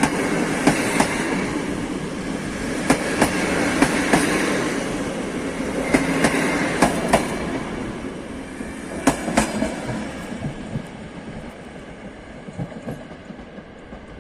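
A train's wheels clattering over rail joints, making clusters of sharp clicks over a steady rumble. The sound gradually fades as the train moves away.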